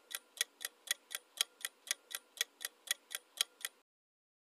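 Clock-like ticking of a quiz countdown-timer sound effect, about four even ticks a second, stopping abruptly near the end.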